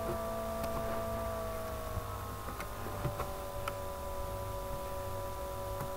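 A steady background hum made of several tones, which drop slightly in pitch about two seconds in, with a few faint ticks.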